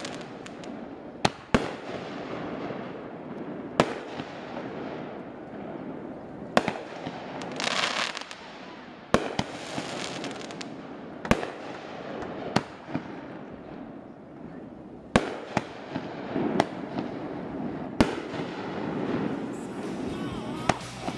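Aerial fireworks going off: about eleven sharp booms at irregular intervals, a few seconds apart, with a brief hissing stretch about eight seconds in.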